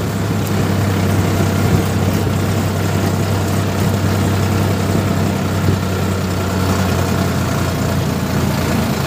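Sonalika tractor's diesel engine running steadily as the tractor drives along, heard close up from on board.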